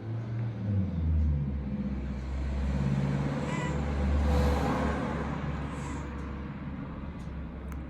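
Hair dryer running, a steady blowing with a low rumble that swells to its loudest about halfway through.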